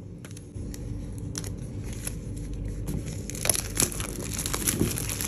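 Clear plastic shrink-wrap being torn open by its pull-tab and peeled off a cardboard box: thin plastic crinkling with small clicks and rustles, busier in the last couple of seconds.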